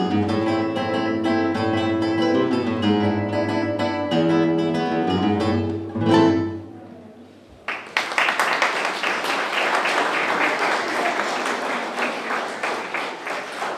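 Two classical nylon-string guitars playing a duet. They end on a final chord about six seconds in that rings and fades away. After a short pause, audience applause starts and carries on.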